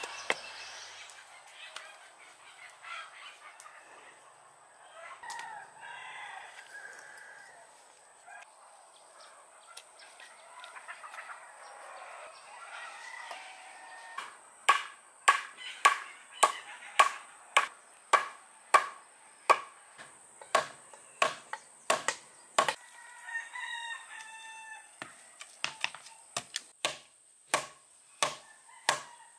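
A wooden stake being pounded into the ground, struck from overhead: sharp, loud knocks about twice a second that begin about halfway through. Before the knocking, birds calling.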